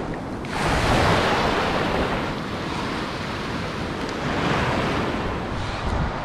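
Surf washing on a beach, with a wave surging in about half a second in, and wind rumbling on the microphone.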